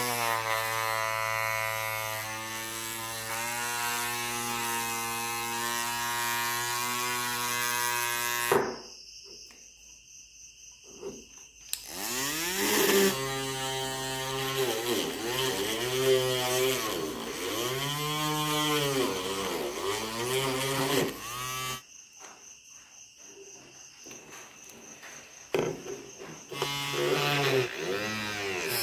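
Small 6 V DC motor of a homemade mini drill whirring with a high whine. It runs at a steady pitch, stops suddenly about a third of the way in, then starts again with its pitch rising and falling over and over. It stops once more and starts again near the end.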